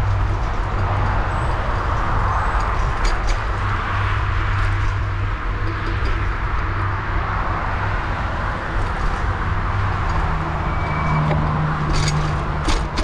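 Steady wind and road noise from riding a bicycle, with a low rumble and scattered clicks and rattles, a few close together near the end.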